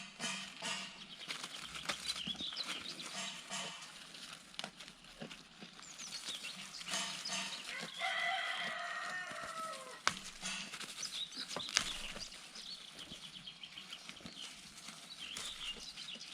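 Birds chirping and calling in many short notes, with one longer call, slightly falling in pitch, that lasts about two seconds from about eight seconds in. A few sharp clicks stand out, the loudest just after ten seconds and near twelve seconds.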